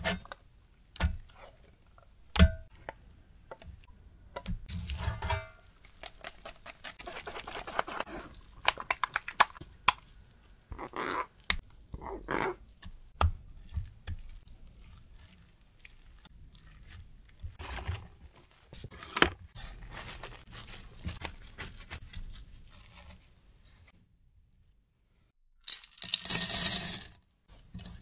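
Thick custard cream worked through a wire mesh sieve and spread in a stainless steel tray with a silicone spatula: soft wet scraping, with sharp taps and clinks on the metal. After a short silence near the end comes a loud, hissing-rattling burst about a second long.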